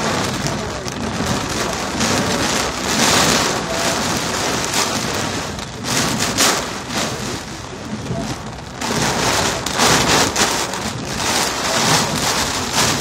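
Heavy wind-driven rain pounding on a car's windshield and roof, heard from inside the cabin, swelling in surges as gusts drive it harder.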